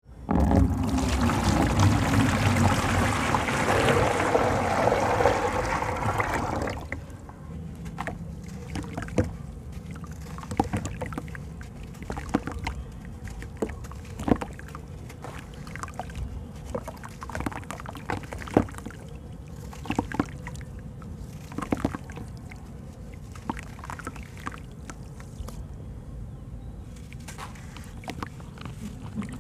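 Crumbling chunks of sand-cement by hand over a tub of water: gritty crumbling, with irregular sharp splashes and plops as pieces and crumbs fall into the water. The first seven seconds hold a loud, steady rush of water being poured.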